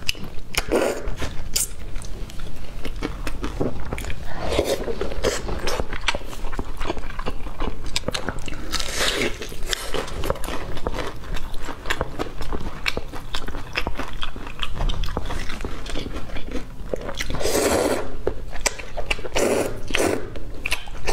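Close-miked eating: crisp crunching bites and chewing of breaded fried chicken, broken by about five loud slurps of noodles from a spicy broth.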